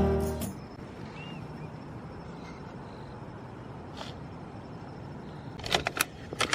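Background music with guitar ends at the start, leaving steady outdoor background noise with a faint short chirp about a second in, one click near the middle, and a few sharp clicks or knocks near the end.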